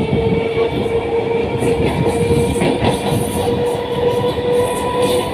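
Loud, steady rumble and rattle of a moving train on the rails, heard from a passenger coach while a freight train of covered wagons passes on the next track. A steady tone is held throughout.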